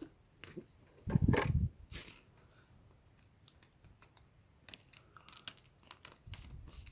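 Trading cards being handled and slid across a wooden tabletop: a scatter of light clicks and taps, with a louder handling noise about a second in.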